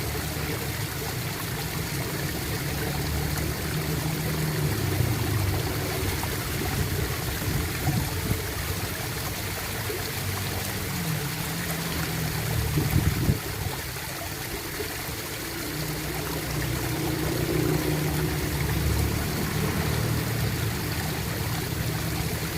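Water gurgling and trickling continuously, with a short louder gurgle about 13 seconds in.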